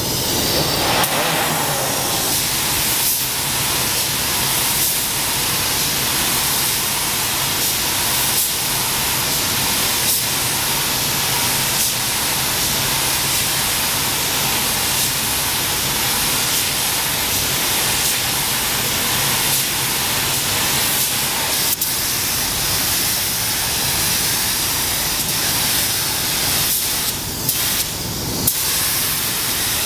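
Compressed-air gravity-feed spray gun hissing steadily as it sprays car paint onto body panels, with a few short breaks near the end.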